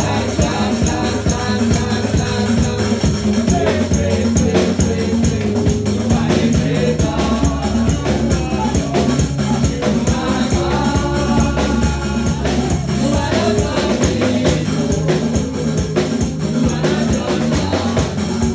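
Upbeat gospel praise music played live: singing voices over drums, a steady bass and shaking hand percussion, with a brisk dance beat.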